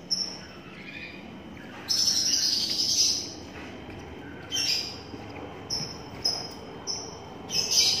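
Twelve-day-old lovebird chick cheeping in high-pitched calls: a long call about two seconds in, then a string of short chirps roughly every half second toward the end.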